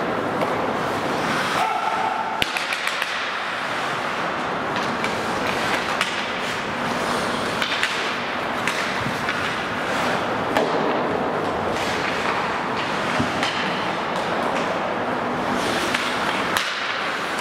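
Ice hockey skate blades scraping and carving on the ice, with a steady hiss and scattered sharp clacks and knocks of sticks and puck.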